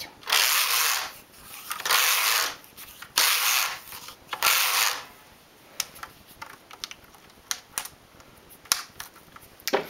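Neva-2 knitting machine carriage pushed back and forth across the needle bed four times, a rasping swish on each pass, followed by scattered light clicks of metal needles being handled.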